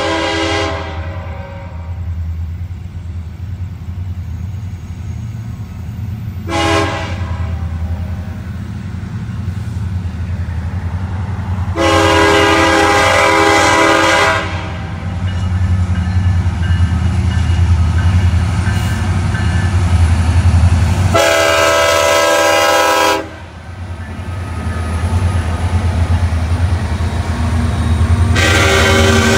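The Nathan K5HL five-chime air horn of a CN SD70M-2 diesel locomotive sounds in separate blasts as the train approaches. One blast ends about a second in, a short one follows, then two long blasts of about two to three seconds, and another begins near the end. Under the horn the low rumble of the approaching train grows louder as it reaches the camera.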